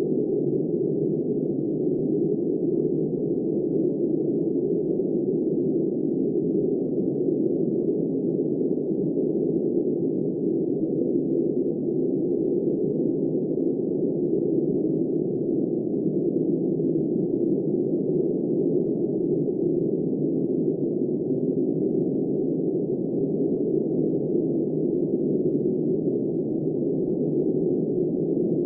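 Steady, dull rush of blizzard wind, even in level throughout, deep and without any high hiss.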